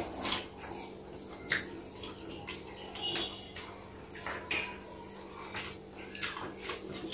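Wet eating sounds: fingers squishing rice and dal on a plate and lips smacking while chewing, as scattered short clicks and squelches over a faint steady hum.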